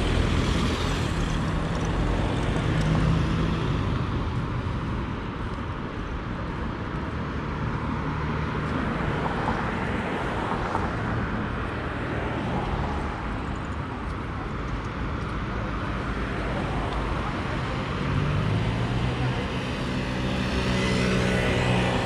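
City street traffic: cars driving past on the road, engine hum and tyre noise. It is louder near the start and again near the end as vehicles pass close by.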